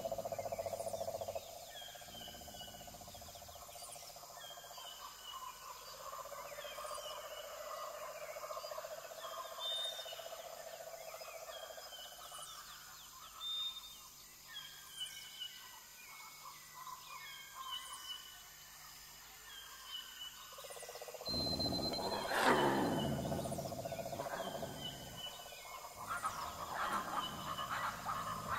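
Superb lyrebird singing through a TV speaker: a long run of short, falling chirps repeated about once a second, over a steady tone in some stretches, with a louder, fuller burst of calls about 22 seconds in.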